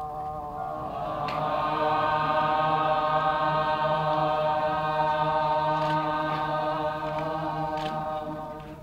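Kecak chorus: a large group of voices holding one long chanted note together. It swells over the first two seconds and fades away near the end.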